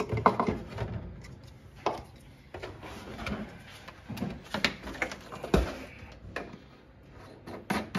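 Handling noises around a water chiller: rustling and scattered knocks and clicks, with a heavier thump about five and a half seconds in, and the chiller's fill cap being handled near the end.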